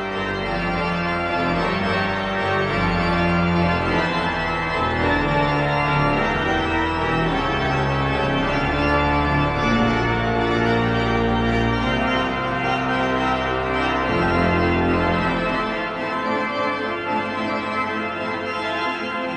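Pipe organ playing slow sustained chords over a moving bass line in the pedals. The deep bass drops out about three-quarters of the way through, leaving softer upper chords.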